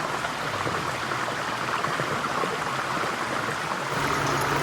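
Coconut oil heating in a frying pan, a steady crackling sizzle. Near the end a low steady hum starts up alongside it.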